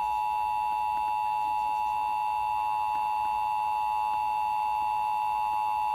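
Emergency Alert System two-tone attention signal: two steady pitches sounding together without a break, the alert that opens a Required Monthly Test message.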